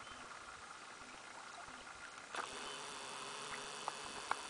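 Faint, scattered little plips of young saithe (sillocks) breaking the sea surface, sounding like raindrops on water, with a few sharper ticks near the end. About halfway in, a faint steady hum rises under them.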